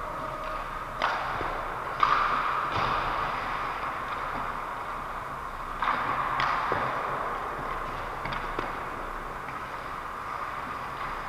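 Ice hockey play in an indoor rink: several sharp clacks of pucks against sticks or boards, about four in the first seven seconds, each ringing on in the arena's echo over a steady background hiss.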